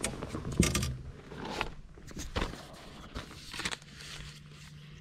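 Handling noises in a fishing boat: scattered knocks, clicks and rustles of gear being moved about. A faint, low, steady hum starts near the end.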